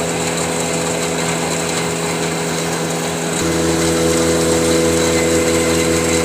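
Pulveriser grinder for maize grits running with a steady mechanical hum. About three and a half seconds in, its tone shifts, with a deeper hum coming in, and it gets slightly louder.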